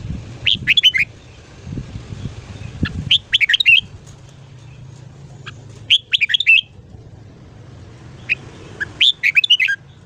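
Red-whiskered bulbul singing: four short, bright warbled phrases of quick rising and falling notes, about three seconds apart.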